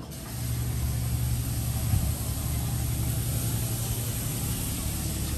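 An engine idling steadily with a low hum and a constant hiss over it, most likely a moored fishing boat's engine or generator running at the dock.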